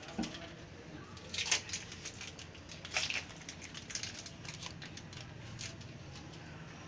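Scattered crinkling rustles and light clicks from hands laying cheese slices onto a pizza and shifting its lined baking tray. There are louder bursts about a second and a half in and again around three seconds.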